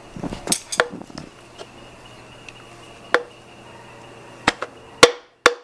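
A wooden rod knocked against a piston inside a Subaru boxer engine block's cylinder bore to drive the piston out. The knocks are sharp and scattered at first, then become a steady run of blows about two a second near the end, each with a short metallic ring.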